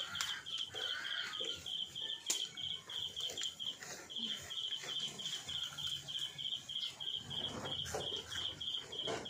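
A chirping insect repeating a high, steady pulsed chirp, about four chirps a second, with faint chewing underneath.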